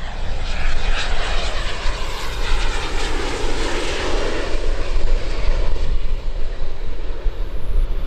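Twin turbofan engines of a British Aerospace BAe 125-800A business jet passing on landing: a jet rush that comes in suddenly, swells with a falling pitch about four seconds in, then fades.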